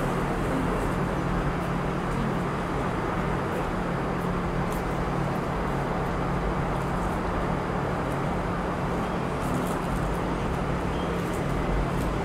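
Steady city background noise: a constant wash of distant traffic with a low, unchanging hum underneath.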